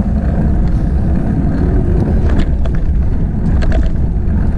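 Wind buffeting the microphone of a camera riding along on a mountain bike, with the rumble of the bike rolling on asphalt, loud and steady; a few short sharp ticks and rattles come through near the middle.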